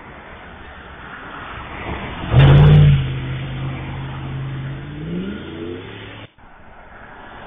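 A car engine accelerating hard through the intersection: a sudden loud blast of engine and exhaust noise, then a steady engine note that climbs in pitch as it revs up, cut off abruptly about six seconds in.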